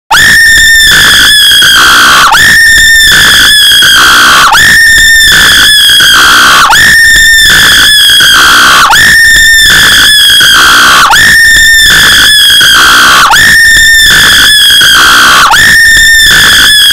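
A looped high-pitched scream, played very loud and clipped, repeating about every two seconds, some eight times over.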